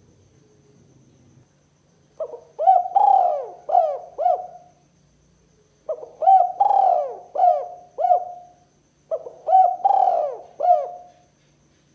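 Spotted dove cooing: three phrases of four or five coos each, starting about two seconds in and repeating every three to four seconds, each with a louder, longer coo in the middle.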